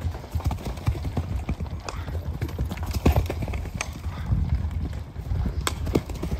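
Hooves of several horses cantering past and jumping a low hay-and-brush obstacle close by: an irregular run of low thuds on soft ground, with a few sharper knocks.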